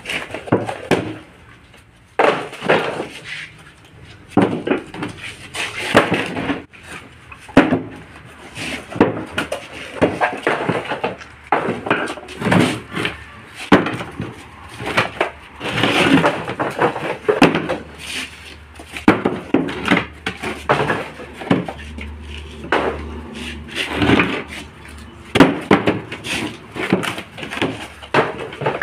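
Irregular knocks and clatter of rigid plastic paver moulds being handled and knocked against a hard surface to free freshly cast concrete interlock pavers, with the pavers clacking as they are set down.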